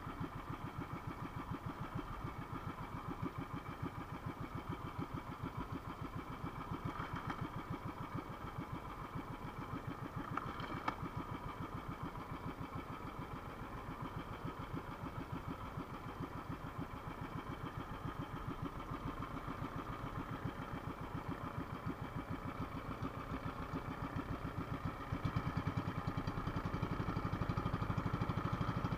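Small outrigger fishing boat's engine running steadily with a fast, even beat, getting a little louder near the end.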